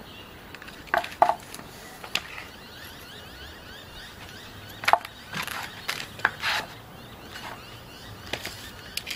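Metal tools and the steel rod-and-pipe jig being handled, giving scattered sharp clicks and clinks. The loudest comes near five seconds in, with a cluster of smaller knocks soon after.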